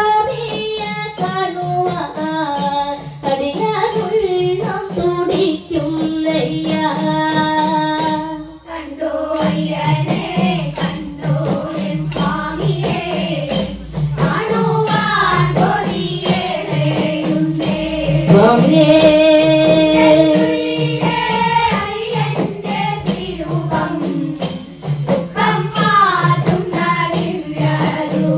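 Group of women and girls singing a Malayalam kavadi chinth devotional song together, with tambourines and small hand drums keeping a steady beat. There is a brief break about eight seconds in.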